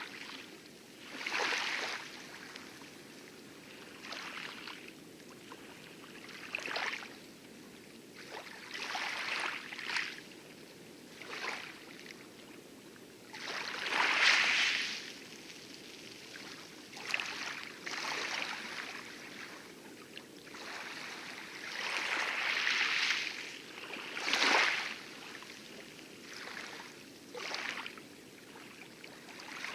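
Light waves lapping and splashing against the coral of an atoll's inner rim in irregular little washes every second or few, over a steady low rush of heavy surf breaking in the distance.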